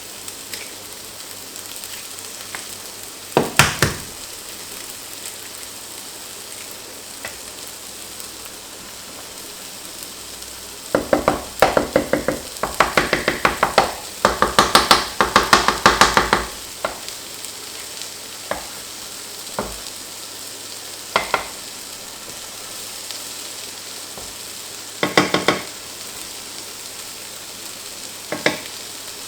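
Food sizzling steadily in a pan on high heat, with a utensil scraping and tapping against the pan in bursts of quick strokes, the longest run lasting about five seconds midway.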